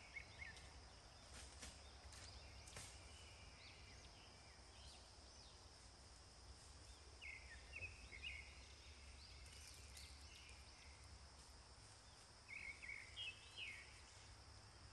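Near silence, broken by a few faint series of short, slightly falling chirping calls, once in the middle and again near the end.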